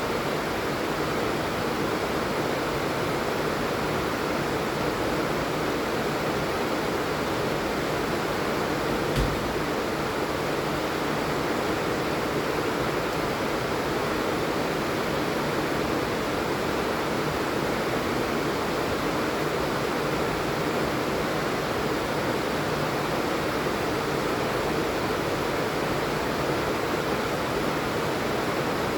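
Steady rain falling, an even hiss without let-up, with one short low thump about nine seconds in.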